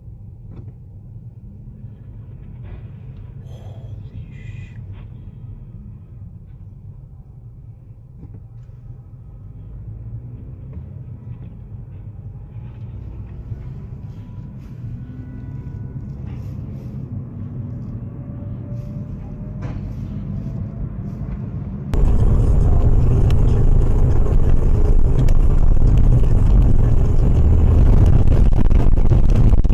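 Low road rumble inside a moving car, slowly growing louder, then a sudden jump about two-thirds of the way through to a much louder rumble and hiss of road noise.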